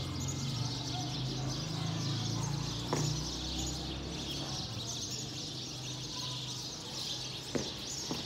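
Birds chirping continuously, with a low steady hum in the first few seconds and a few sharp clicks.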